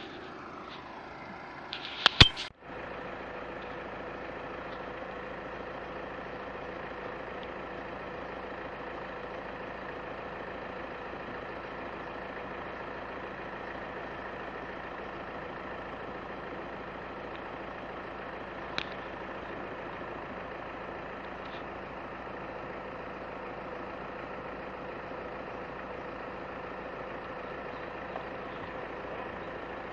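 A vehicle engine idling steadily, with a loud cluster of sharp knocks about two seconds in and a single click later on.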